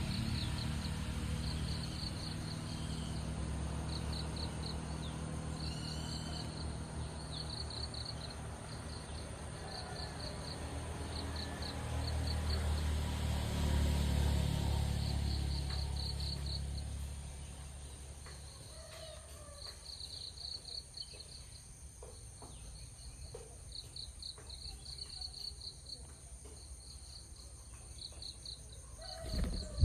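Crickets chirping in short pulsed trills, over a steady high insect drone. A low rumble underlies the first half and fades out after about seventeen seconds, and there is a brief thump near the end.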